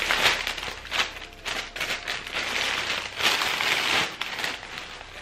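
Cellophane and paper wrapping on a bunch of flowers crinkling and rustling in irregular bursts as it is handled and pulled off.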